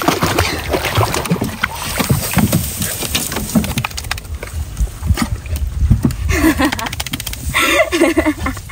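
Water splashing and sloshing around a small boat, with irregular knocks and clatter throughout. A short pitched voice-like sound comes twice in the last few seconds.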